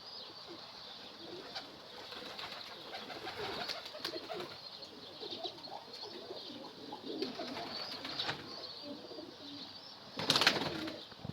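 Domestic pigeons cooing, with higher bird chirps mixed in. A short, loud rush of noise comes about ten seconds in.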